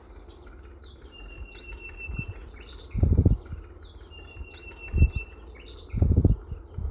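Songbirds chirping in the countryside, with a long, thin, steady whistle heard twice. Short, loud, low thumps break in about three seconds in, again at five seconds, and again just after six.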